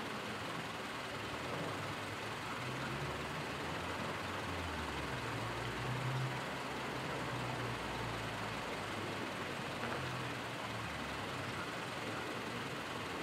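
A motor vehicle passing, its low engine rumble swelling to a peak in the middle and fading away, over steady background noise.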